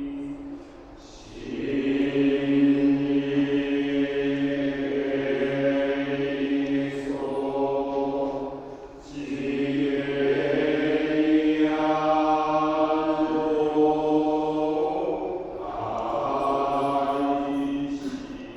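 Buddhist monks chanting together in long, held phrases, pausing briefly for breath between them.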